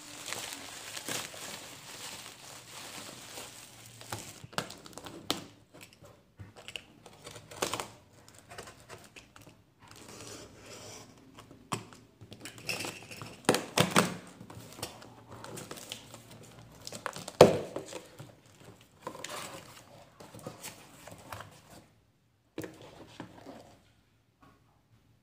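Black bubble-wrap plastic crinkling as it is pulled off a parcel, then a cardboard box being torn open by hand, with irregular rustling and a few sharp knocks. The loudest knock comes about two-thirds of the way through.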